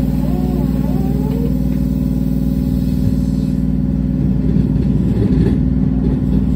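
Running noise inside a Hanshin Railway train car in motion: a steady low hum with wheel-on-rail rumble, turning rougher about four seconds in.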